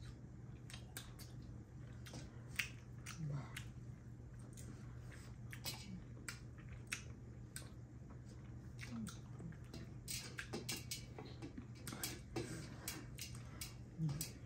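Close-miked chewing of two people eating by hand: irregular wet smacks and clicks of mouths and food, over a steady low hum.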